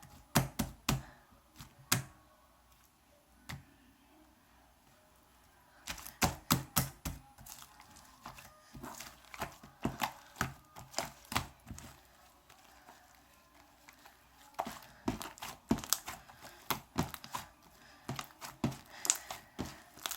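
Homemade slime being squeezed, stretched and pressed by hand, giving runs of sharp clicks, pops and crackles. There is a quiet spell of a few seconds early on, then dense clicking resumes.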